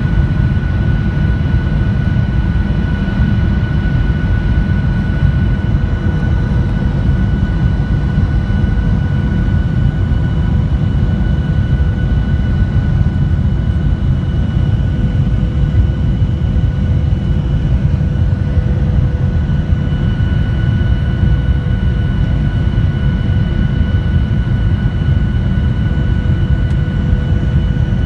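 Cabin noise inside a Boeing 737-900ER in descent: a steady low rumble of airflow and its CFM56-7B engines, with a few steady engine tones on top.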